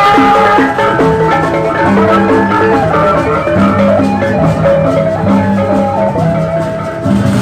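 Sasak gendang beleq ensemble playing: a busy melody of short notes on the hand-carried reong kettle-gongs over sustained low gong and drum tones.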